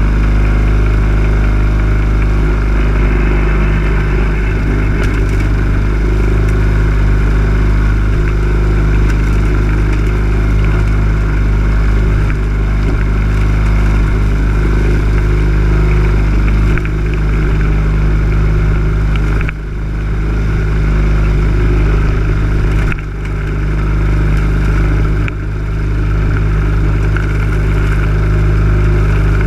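Lawn mower's small petrol engine running steadily under load, picked up close by from a camera mounted on the mower. Its level dips briefly a few times in the last ten seconds.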